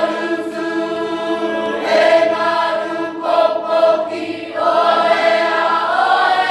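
A large group of voices singing together in Cook Islands Māori, a traditional choral practice of imene tuki and ute, with long held notes that shift in pitch about halfway through and again near the end.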